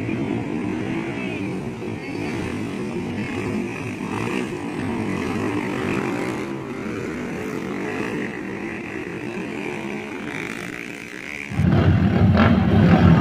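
Small dirt-bike engines running hard as motocross bikes race along a dirt track. Near the end the sound changes abruptly to a louder one.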